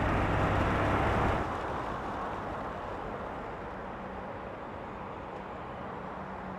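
Vehicle driving on a wet road in the rain: a strong low engine drone falls away about a second and a half in as it eases off. After that comes a quieter steady hiss of road and rain noise with a faint hum.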